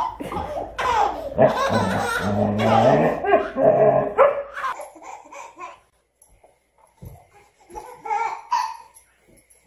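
A baby belly-laughing in repeated loud bursts, stopping about four and a half seconds in; after that it is much quieter, with scattered soft knocks and a brief high vocal sound near the end.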